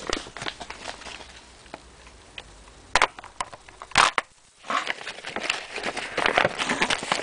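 Paper crinkling and rustling as a magazine page is unfolded, mixed with the knocks of handling. Two sharp knocks come about three and four seconds in, and the rustling grows dense in the last few seconds.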